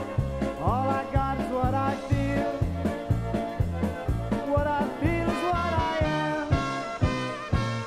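Polka band playing an instrumental break with no singing. A lead melody runs over a steady two-beat of bass notes alternating with off-beat strokes, about two bass notes a second.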